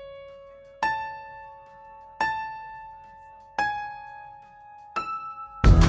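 Background music: single ringing notes, about one every second and a half, each fading away. Near the end a loud electronic beat drops in.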